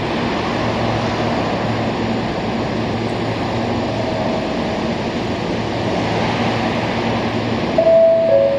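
Nankai 8300 series electric train approaching slowly over the points: a steady rushing rolling noise with a low hum. Near the end it gets louder and a pair of steady whining tones come in.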